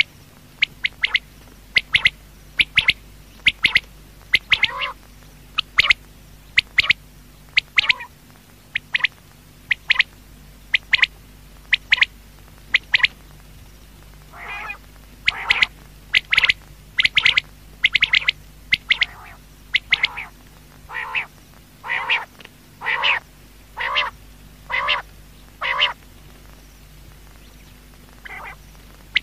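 Quail calling: a long series of short, sharp calls, about one to two a second with brief pauses, over a faint steady hum.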